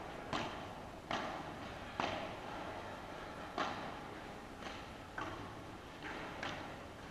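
Padel ball in play: about seven sharp knocks at irregular intervals as the ball is struck by paddles and bounces off the court and walls, each ringing briefly in the large hall; the strongest comes about two seconds in.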